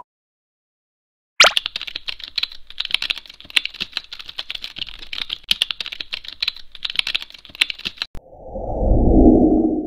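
Keyboard-typing sound effect: a rapid, uneven run of key clicks that starts about a second and a half in and stops about eight seconds in, followed by a low whooshing swell that rises and fades near the end.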